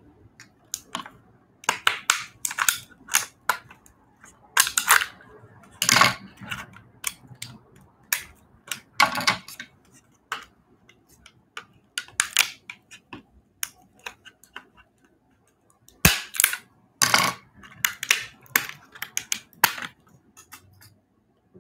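Scissors cutting into and cracking a hard clear plastic case: a long irregular series of sharp snaps and crunches that pauses briefly and stops near the end.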